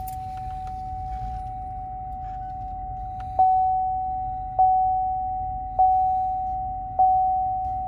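A pickup truck's rear park-assist warning sounding while it reverses toward the trailer hitch: a steady tone, then from about three and a half seconds in a repeating chime a little over a second apart, four times, warning of an object close behind.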